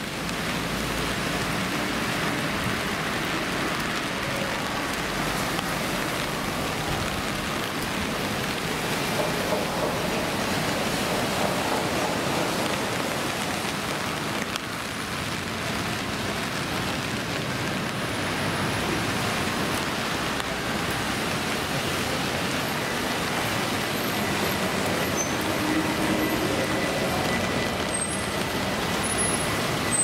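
City street ambience of road traffic in steady rain: an even, unbroken wash of tyre and engine noise mixed with the hiss of rain.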